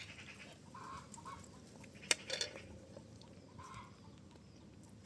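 Chickens clucking quietly, a few short clucks, with a sharp click about two seconds in.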